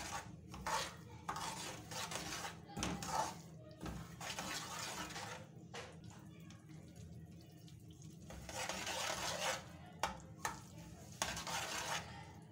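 Metal ladle stirring and scraping a thick halwa mixture in a steel frying pan, in irregular strokes, with a few sharp clinks of ladle on pan near the end.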